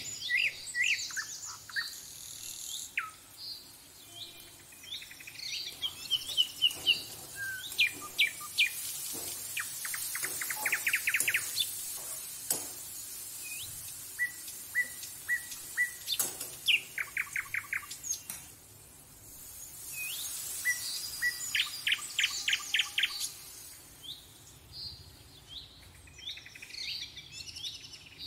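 Small birds chirping and trilling: short whistled notes and quick trills of rapidly repeated notes come again and again, with a soft high hiss rising under them in the middle.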